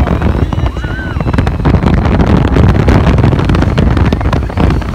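Rushing wind buffeting the microphone over the steady rumble of a Test Track ride vehicle running at high speed on the outdoor loop.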